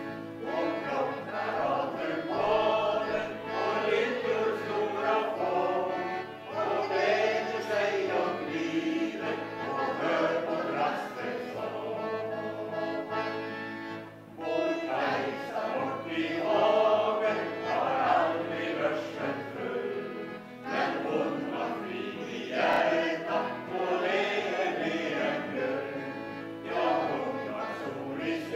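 Mixed choir of men and women singing together with accordion accompaniment, in phrases with a short break for breath about halfway through.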